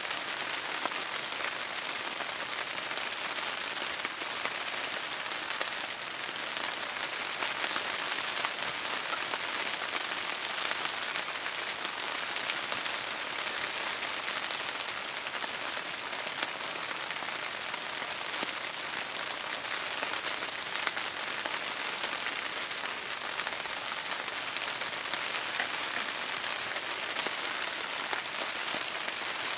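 Steady rain falling, an even hiss with small scattered drop ticks.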